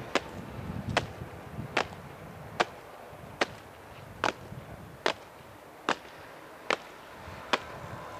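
East German honour-guard soldiers goose-stepping in unison, their boots striking the stone paving in a sharp, even beat: ten stamps a little under a second apart.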